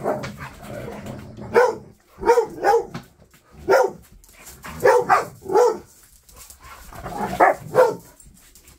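Dog barking repeatedly: about nine short, sharp barks, some single and some in quick pairs, with uneven gaps between them.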